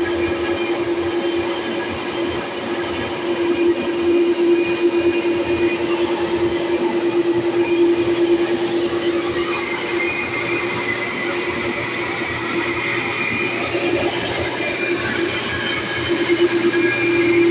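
Airbus A330's jet engines running at idle as it taxis in at close range: a steady hum with a thin, high whistle above it.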